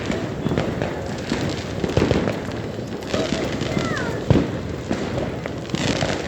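Fireworks going off in a dense, unbroken crackle of many overlapping bangs, with one sharper bang about four seconds in.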